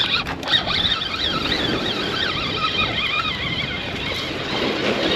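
Fishing reel being cranked to bring in a hooked bat ray: a thin whine that wavers up and down in pitch, with a few clicks at the start, over wind and water noise.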